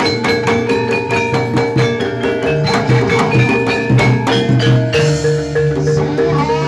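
Live jaranan gamelan ensemble playing a fast piece: quick, dense kendang and drum-kit strokes over repeating metallophone notes from saron and kenong, with a steady low tone underneath.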